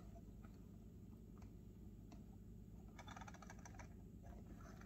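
Faint, small clicks and light rattling from a plastic model train boxcar being handled and set on the track, with a short cluster of clicks about three seconds in; otherwise near silence.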